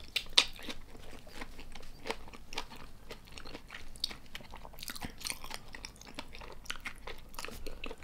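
Close-miked chewing of Korean soy-marinated raw tiger prawn, with irregular mouth clicks several times a second.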